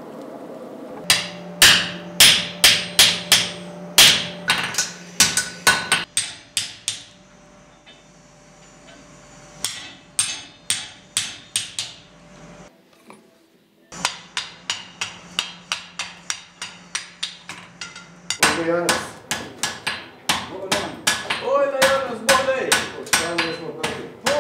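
A blacksmith's hand hammer striking red-hot iron on an anvil, forging it in quick runs of ringing blows, about three or four a second, with short pauses between runs.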